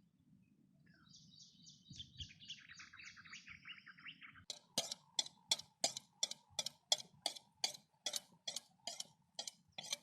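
Wild birds calling: a quick run of high repeated notes and a falling trill, then a loud series of sharp calls repeated about three times a second, over a faint low rumble.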